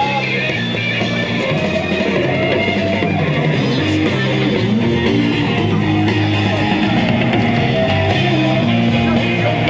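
Rock music with guitar and bass guitar, playing steadily.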